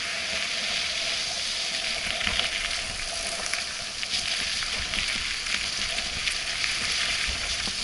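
Mountain bike tyres rolling along a wet, muddy dirt trail: a steady hiss with scattered small clicks and rattles.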